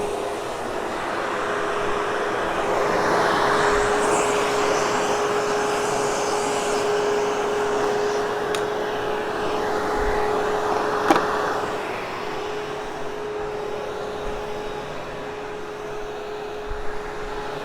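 Hoover HushTone vacuum cleaner running on carpet, its motor holding a steady hum while the overall sound swells and eases. There is a single sharp click about eleven seconds in.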